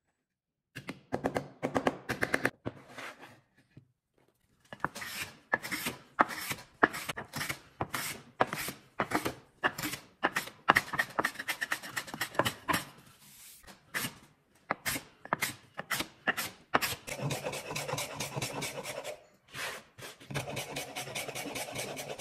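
A hand tool rubbing back and forth on wood in quick rasping strokes, about two a second, with short pauses. Near the end the strokes run together into steadier rubbing.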